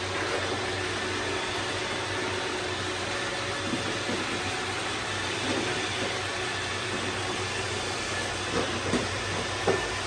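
Robot vacuums running on a tile floor: a steady whirring hiss from their suction fans and brushes, with a few light knocks near the end.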